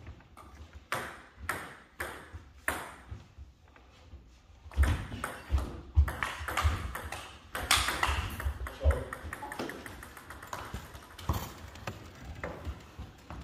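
Table tennis ball clicking: a few evenly spaced taps about 0.6 s apart, then from about five seconds in a quick rally of hits on bats and table. Low thuds of the players' feet on the wooden floor come with the rally.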